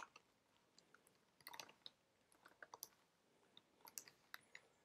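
Faint computer keyboard keystrokes: a dozen or so soft, irregularly spaced clicks as a line of code is typed.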